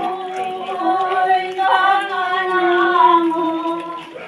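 Women's voices singing a slow hymn without accompaniment, holding long notes, the singing dying away just before the end.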